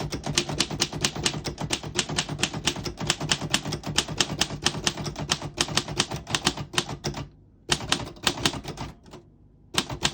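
1937 Underwood Universal manual typewriter being typed on quickly: a fast run of sharp key strikes, about seven a second, that stops about seven seconds in, followed by two short bursts of strikes with gaps between them.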